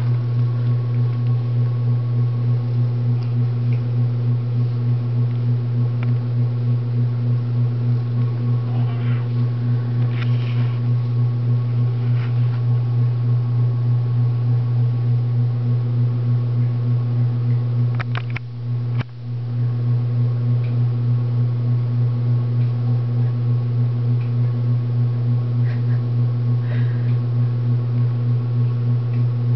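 Loud steady low electrical-sounding hum with a slight regular pulse, dropping out briefly with a couple of clicks about two-thirds of the way through.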